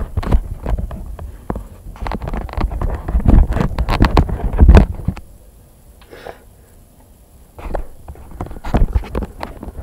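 Handling noise on a handheld tablet's microphone: irregular rubbing and bumps, heaviest in the low end, easing off for a couple of seconds past the middle.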